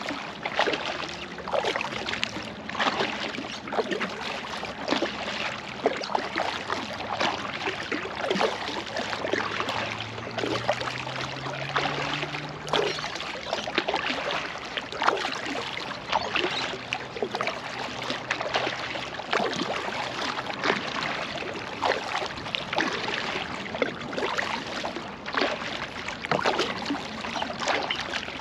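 Oars dipping and splashing as a kayak is rowed along, in an uneven run of strokes over water lapping against the hull. A faint low hum rises in pitch about ten to thirteen seconds in.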